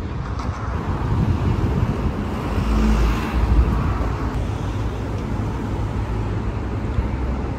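Street traffic noise. A car passes, loudest about three seconds in.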